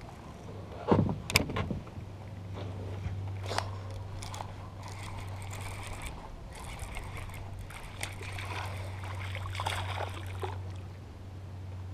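Baitcasting rod and reel being cast and then cranked back from a kayak. Two sharp knocks come about a second in as the cast goes out, then a steady low whir of the reel being turned with small clicks, pausing briefly midway, over faint water slosh.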